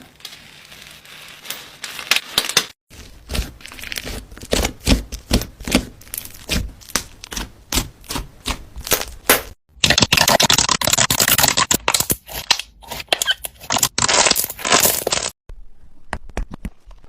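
Slime being handled: a run of sharp clicks and pops, then, about ten seconds in, a denser crackling stretch of about five seconds that stops abruptly.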